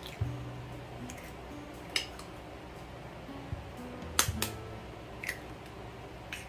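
Eggs being cracked with a fork: about six sharp taps and cracks of eggshell, the loudest a quick pair a little past four seconds in. Soft background music with slow, sustained low notes plays underneath.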